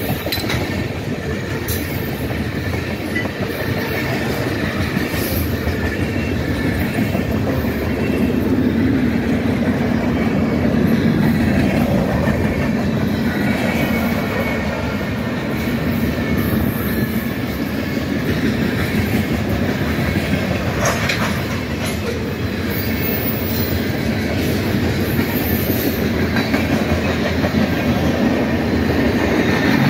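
Norfolk Southern freight train cars rolling past, a steady rumble of steel wheels on rail with occasional clacks and a little wheel squeal.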